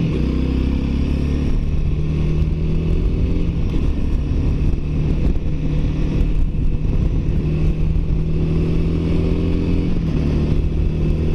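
Honda Rebel 300's single-cylinder engine running steadily at cruising speed, with wind rushing over the rider's microphone.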